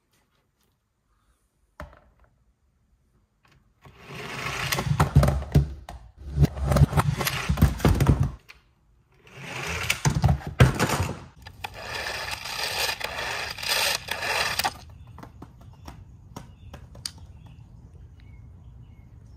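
Plastic Sonic rev launcher toy being revved by hand, whirring in three bursts of a few seconds each, followed by a fainter steady noise.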